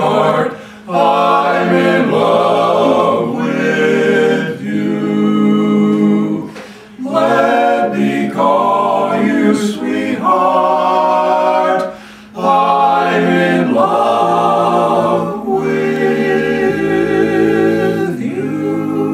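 Barbershop quartet singing a cappella in close four-part harmony, in sung phrases separated by brief pauses for breath, moving into a long held chord near the end.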